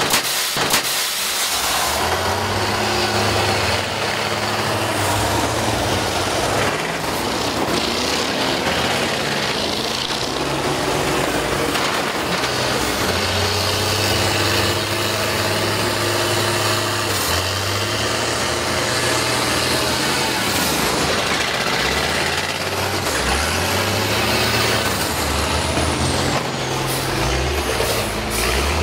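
School bus engines revving under load in a demolition derby, their pitch rising and falling, with sharp crashing impacts in the first second as the buses collide.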